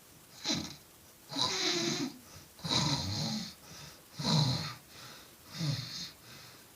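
Steady snoring in a sleeper's breathing rhythm: five snores, roughly one every second and a half, each a low rasp with a breathy hiss.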